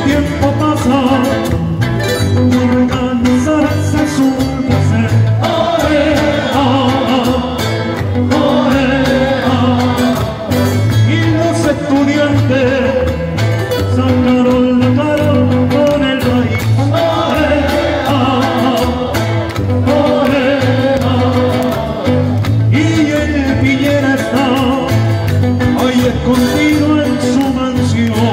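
Live street band playing a song: strummed acoustic guitars and an electric guitar over a steady beat, with several voices singing together through a small PA.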